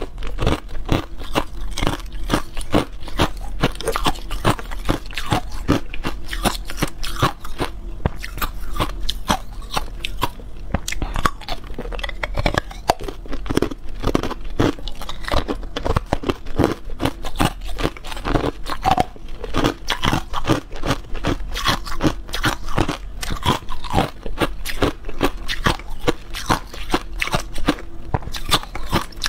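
Hard, clear ice cubes being bitten and chewed close to the microphone: a dense, irregular run of sharp cracking crunches with no real pause.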